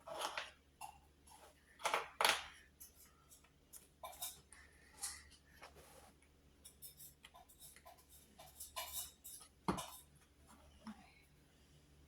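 Plastic Lego bricks being handled and pressed together: irregular small clicks and rattles, with a louder knock about three-quarters of the way through.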